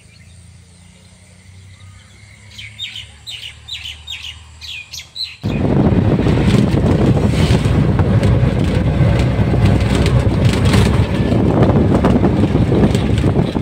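Birds chirping: a quick run of short chirps, about three a second. About five and a half seconds in, a sudden loud, steady rushing noise takes over.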